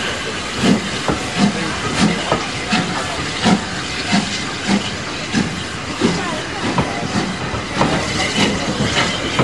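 GWR 1600 class pannier tank steam locomotive 1638 working slowly with a train of coaches, exhaust beats evenly spaced at about three every two seconds over steady steam hiss and the rumble of the passing coaches.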